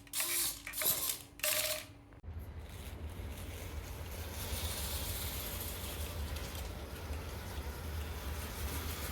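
RC car steering servo whirring in several short bursts as it swings the front wheels back and forth. About two seconds in it gives way abruptly to a steady low rumble with a light hiss.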